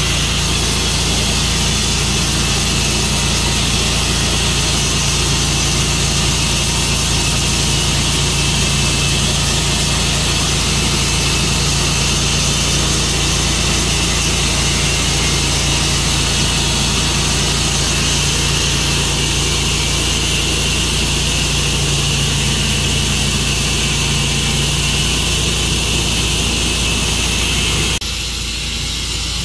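Tru-Cut sawmill running steadily, its engine holding a constant pitch. About a second before the end, the sound changes abruptly.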